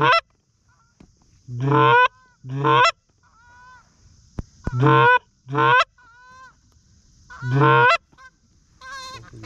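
A goose call blown in loud, close honks, mostly in pairs, answered by fainter Canada goose honks from farther off. Near the end several geese start honking together.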